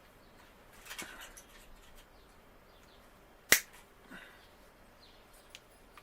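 A sharp snap about three and a half seconds in, with smaller cracks and clicks before and after it: the broken old tip of a fishing rod being broken away from the rod.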